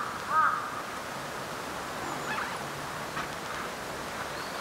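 Outdoor woodland ambience: a steady rushing hiss, with a bird giving a short arching call just after the start and a few faint chirps later on.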